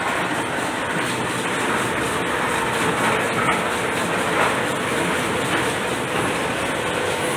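Areca (betel) nut peeling machine running steadily, its cup conveyor carrying young wet areca nuts up to the peelers, with a dense, even mechanical clatter.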